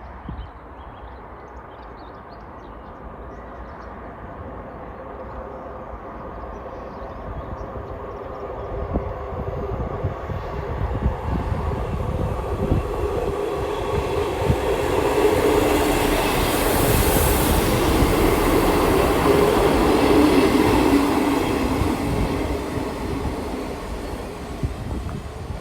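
Diesel multiple unit train approaching along the line, its engine drone growing steadily louder with the clicking of wheels over rail joints, loudest about two-thirds of the way through with a brief hiss, then easing slightly.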